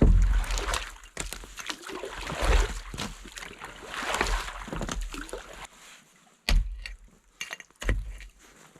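Ice a few inches thick being chopped open on a frozen stock-water tank: repeated hard strikes through the ice, with water splashing and sloshing as the hole opens, then two separate sharp strikes near the end.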